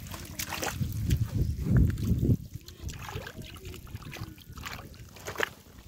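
Hands sloshing and splashing through shallow muddy water, feeling in the mud for fish, with scattered short splashes. A low rumble is loudest over the first two seconds or so.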